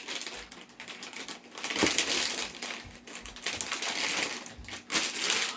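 Plastic blind bag crinkling and crackling as it is handled and torn open, a run of irregular small crackles and clicks.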